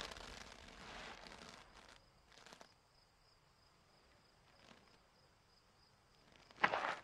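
Cartoon foley for a small animated bird: a soft rustling as it picks itself up, a light tick, then a sharp footstep near the end.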